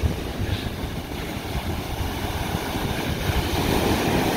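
Ocean surf breaking and washing in as a steady rush, with wind buffeting the microphone in low gusts.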